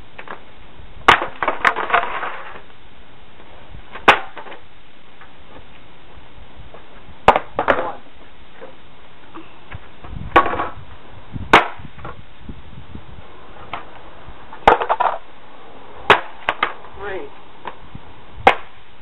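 Old Kmart skateboards cracking and clattering onto a concrete sidewalk as they are kicked and flipped, about a dozen sharp wooden impacts in irregular clusters, some landing alone and some in quick rattling doubles.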